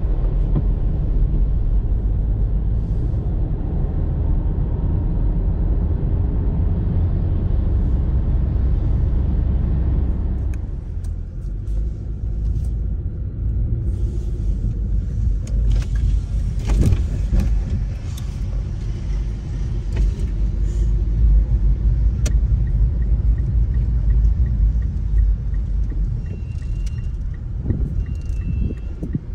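Car driving slowly, heard from inside the cabin: a steady low road and engine rumble that eases about ten seconds in as the car slows. Later come a few sharp clicks and, near the end, a faint regular ticking.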